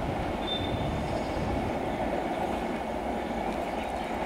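Steady rumble of a passenger train's coaches running on the rails as the train draws away, with a brief high squeal about half a second in.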